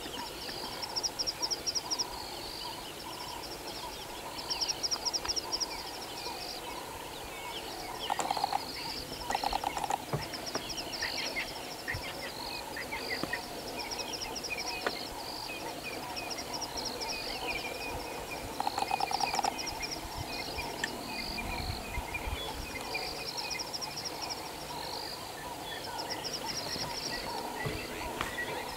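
Bush ambience of calling wildlife: a high, rapid ticking trill about a second long repeats every few seconds over a chorus of assorted bird calls.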